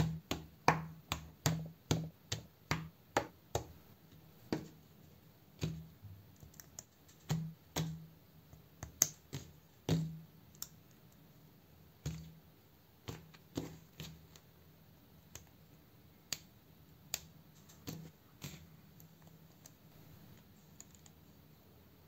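Small plastic LEGO-compatible brick parts clicking as they are handled and pressed together: a string of sharp clicks, quick at first, then sparser, thinning out near the end.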